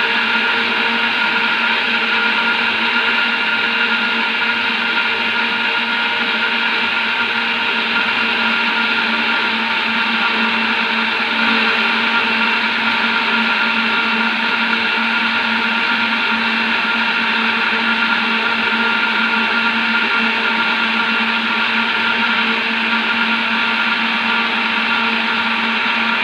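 Electric countertop blender running steadily at constant speed, whipping eggs with oil for cake batter, with an even motor whine.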